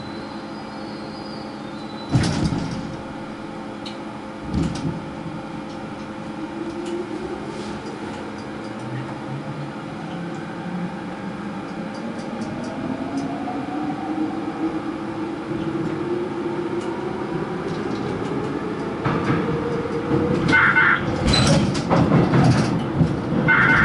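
Seoul Subway Line 5 electric train picking up speed in a tunnel, heard from the cab. Its traction motors whine in a tone that rises steadily in pitch as it accelerates. Wheels knock sharply twice early on, and the rail noise grows into louder clattering near the end.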